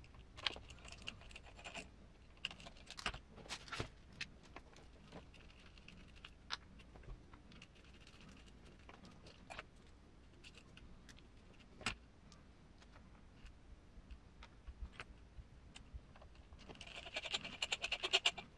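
Scattered light clicks and taps of small shock parts being handled as the internal spring is taken out of a scale RC truck's shock absorber, with a quick run of clicking near the end.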